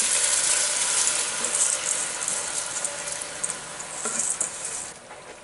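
Soaked basmati rice poured into a hot wok of frying vegetables and masala, the grains landing with a scatter of small clicks over a sizzle. The sound fades toward the end.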